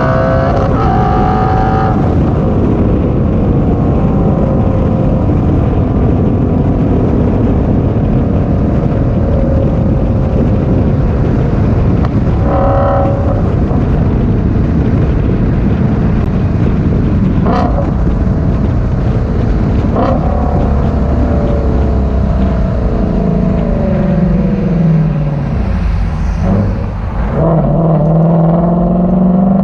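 Ford Shelby GT350's 5.2-litre Voodoo flat-plane-crank V8 through a resonator-delete exhaust, driven hard. The pitch climbs at first, then there is a long stretch of dense, loud running. About three-quarters of the way through the pitch falls away as it slows, and near the end it climbs again.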